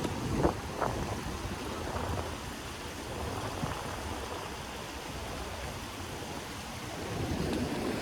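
Wind buffeting the microphone over a steady rush of water, with two short knocks or splashes about half a second and a second in.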